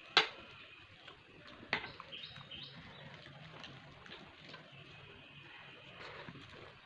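Eating by hand, with fingers mixing rice and curry on a plate and handfuls being eaten: a sharp click just after the start is the loudest sound, with a smaller one near two seconds in. Short high chirping calls sound in the background several times.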